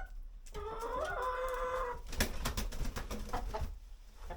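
A chicken gives one drawn-out call lasting about a second and a half. A run of close scratchy clicks and rustles follows, close to the microphone.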